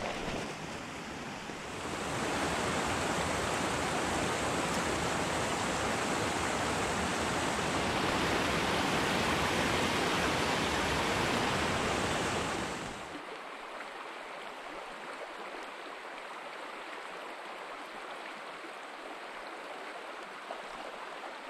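Small mountain creek's running water, a steady rush. It gets louder about two seconds in and drops back to a quieter flow after about thirteen seconds.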